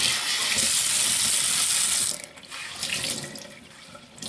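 Kitchen tap running into a stainless steel sink as a cloth is rinsed under it. The water stops abruptly about two seconds in, followed by a few fainter splashes.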